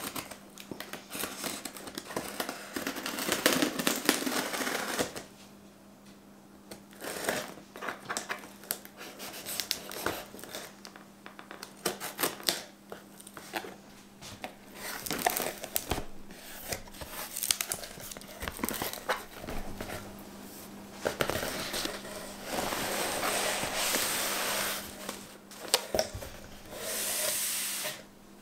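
Packing tape being pulled and torn off a cardboard box, then cardboard flaps scraping and rustling as the box is opened and unpacked, with short taps and clicks along the way. A faint steady hum runs underneath.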